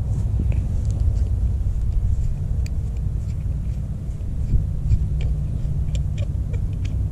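Wind rumbling on a GoPro's built-in microphone, steady and low. A few faint light clicks come through as the metal quickshifter rod parts are turned and handled.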